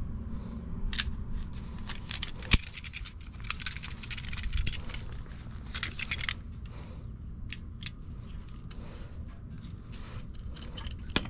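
Steel drum-brake return spring and brake spring pliers clinking and jingling as the spring is stretched and hooked into the brake shoe, with one sharp metal click about two and a half seconds in.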